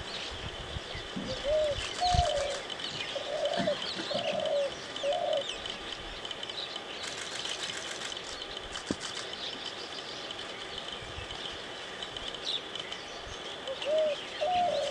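A dove cooing a short phrase of four or five low notes about a second in, over scattered chirping of small birds. A few low splashes of water in the first two seconds.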